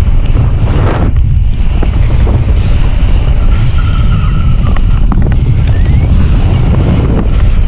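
Heavy wind buffeting a handheld action camera's microphone during tandem paraglider flight: a steady loud low rumble of airflow.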